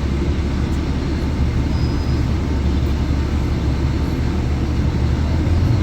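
City bus running, heard from inside the cabin: a steady low engine and road rumble.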